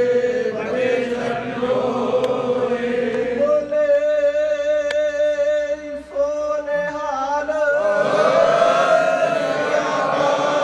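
Sikh congregation chanting together in unison, in slow, long-held sung lines.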